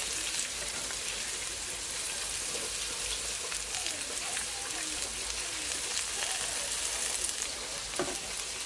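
Minced garlic sizzling in oil in a nonstick skillet, stirred with a silicone spatula. Near the end, sliced onion drops into the pan.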